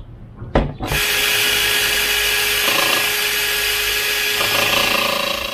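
Cordless drill running steadily with a whining motor, boring a hole through the plastic back of a car headlight housing. It starts about a second in after a short click.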